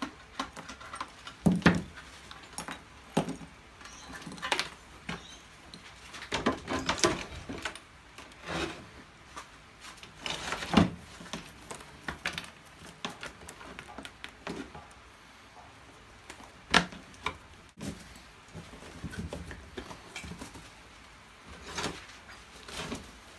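Irregular knocks, taps and scraping as a hard plaster mother mould is worked open with a hand tool, then the rubbery rustle and slap of a silicone mould being peeled off a set plaster cast. A few sharper knocks stand out, about a second and a half in, near the middle and about two thirds of the way through.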